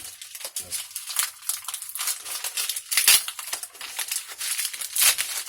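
Plastic packaging crinkling and rustling as it is handled, an irregular crackle with louder bursts about three and five seconds in.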